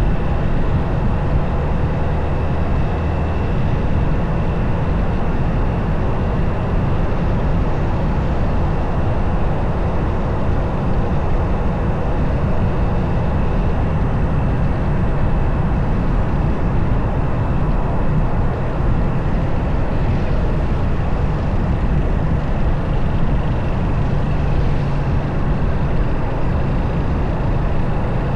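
Motorcycle riding along steadily: its engine running under a dense, even rush of wind and road noise.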